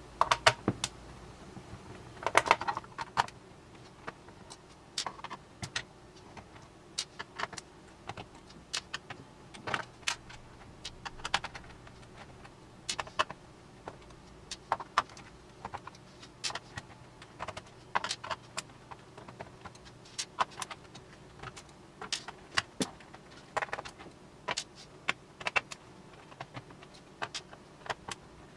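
Scattered plastic clicks, taps and rattles of a Logitech K120 keyboard being handled while the Phillips screws are taken out of its back. A small cluster of louder clatters comes a couple of seconds in.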